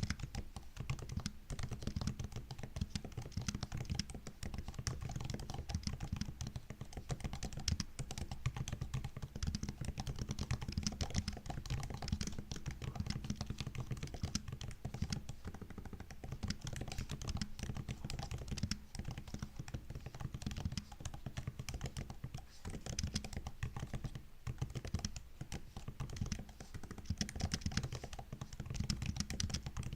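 Continuous fast typing on a MacBook's built-in laptop keyboard: a dense stream of soft key clicks and taps without pause.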